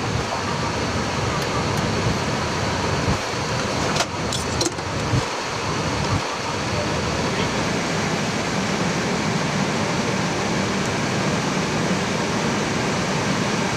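Steady rushing cabin noise inside an Airbus A320 cockpit as the airliner rolls along the runway after landing, engines and airflow running evenly. A few sharp clicks come about four seconds in.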